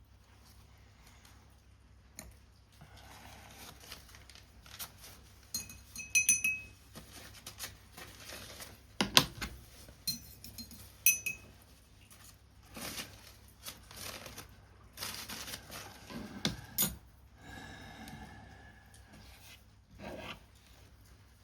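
Paper-craft work sounds: paper and card being handled, rubbed and scraped, with irregular light knocks. Small metal tools clink with a brief ring twice, about six and eleven seconds in.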